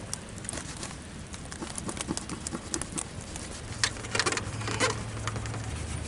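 A cloth rag rubbing and wiping sticky tape residue off the RV's exterior panel, with scattered small scuffs and clicks and a busier patch of rubbing past the middle. A low steady hum comes in a little past halfway.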